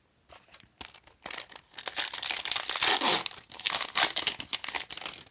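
A foil Magic: The Gathering booster pack wrapper being torn open and crinkled by hand. After a few light clicks it becomes a dense, continuous crackling from about a second in until near the end.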